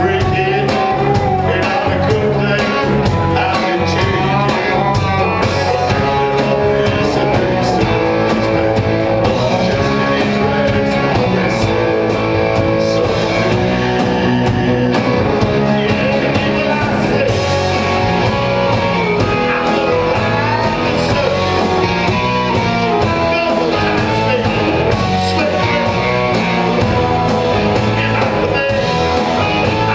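Live rock-and-roll band playing at full volume: electric guitar, drums and bass under a singer's voice, heard from within the audience.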